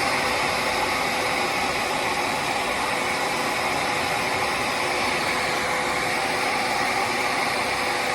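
Handheld hair dryer blowing steadily: an even rushing hiss with a faint steady hum underneath.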